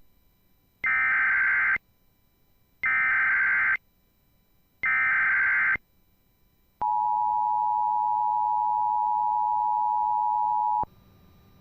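Emergency Alert System header: three one-second bursts of warbling digital data tones, about two seconds apart, then the two-tone EAS attention signal held steady for about four seconds before cutting off. The tones open a tornado warning broadcast.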